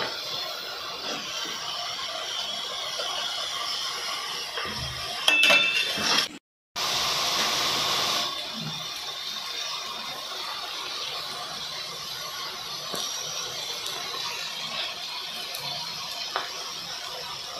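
Paratha frying in oil on an iron tawa, a steady sizzling hiss, with a few clinks about five seconds in.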